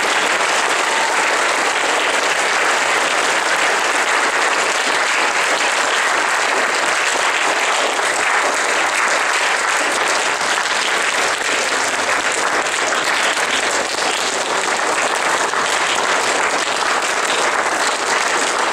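Sustained audience applause, many hands clapping at an even, loud level.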